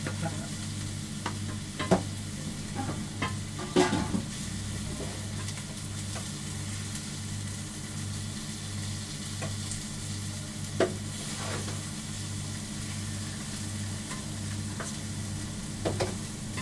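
Pieces of food frying on a steel flat-top griddle, a steady sizzle, with a metal spatula scraping and knocking against the plate a few times, most sharply about two and four seconds in. Under it runs a low hum that pulses about three times every two seconds.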